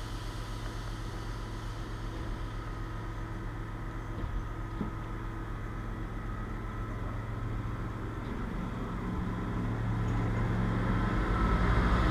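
SNCF Z 5300 electric multiple unit starting off from standstill and pulling away. A steady electric hum grows louder over the last few seconds, with a low whine rising in pitch as the train picks up speed.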